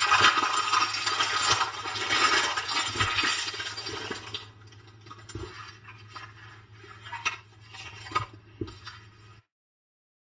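Plastic stretch film crinkling and crackling as it is peeled off and crumpled, loud for about the first four seconds. After that come quieter scattered taps and clicks of handling, which cut off suddenly near the end.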